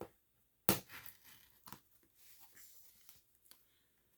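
A packaged box being handled: a sharp knock just under a second in, then scattered small clicks and crinkling.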